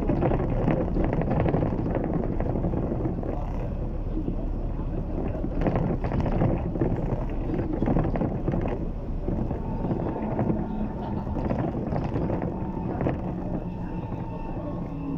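Inside a moving Bohdan T90110 trolleybus: steady rumble of tyres and body while it runs along the road, with a steady whine coming in about two-thirds of the way through.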